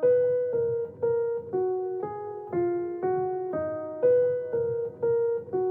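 Background music: a keyboard plays a short repeating phrase of single notes, about two a second.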